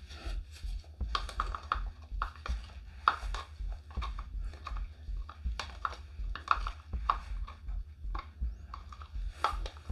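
Irregular light clicks and scrapes, about two or three a second, of a stir stick and plastic mixing cups being handled while preparing resin, over a low steady hum.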